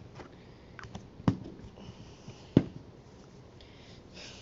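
Two sharp clicks or knocks, about a second in and again over a second later, with faint rustling between.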